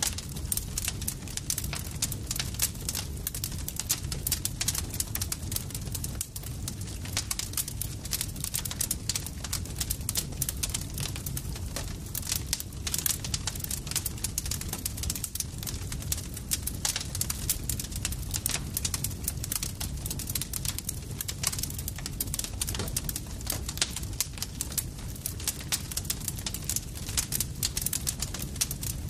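Campfire crackling: dense, irregular pops and snaps over a steady low rumble of burning wood.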